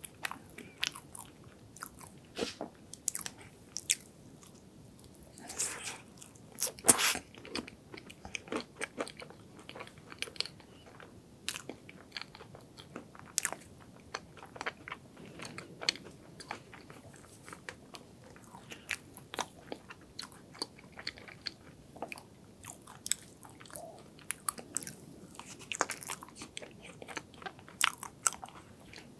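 Close-miked chewing of a dense, fudgy chocolate hazelnut cake: a steady run of sticky mouth clicks and lip smacks, with one louder sharp click about seven seconds in.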